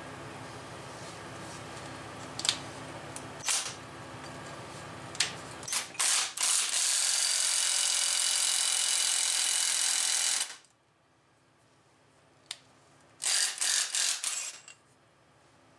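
Impact wrench hammering on the forcing screw of a wheel-bearing press tool to push the hub out of the steering knuckle. It gives a few short bursts, then one long burst of about four seconds, then three or four more short bursts near the end, and the hub is still not moving. A low steady hum runs underneath for the first six seconds.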